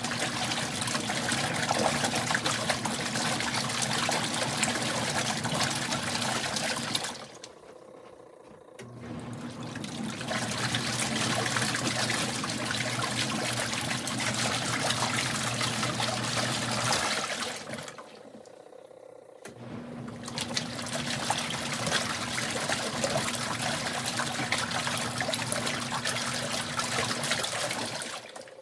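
Kuppet portable washing machine agitating clothes in water: the wash motor hums while the water sloshes. It runs in three spells of about eight seconds, stopping briefly between them.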